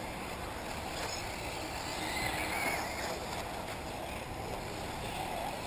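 Electric 1/8-scale RC buggies running on the off-road track: a steady noisy wash with a faint motor whine that rises and falls about two seconds in.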